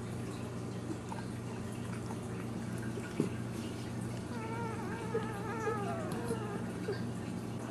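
A ten-day-old dachshund puppy whining in a thin, wavering, mewing cry that lasts about two seconds, a little past the middle, over a steady low hum. A single sharp click comes just before the cry.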